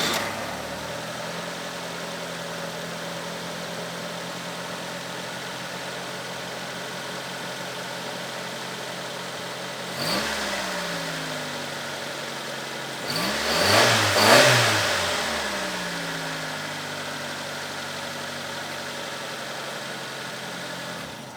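Car engine idling just after start-up, freshly filled at the end of an oil change. It is revved once about halfway through and twice more, louder, a few seconds later, then switched off at the very end.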